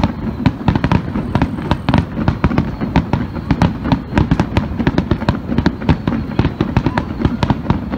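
Fireworks finale barrage: aerial shells bursting in a dense, rapid run of bangs and crackles, many a second, over a continuous low rumble.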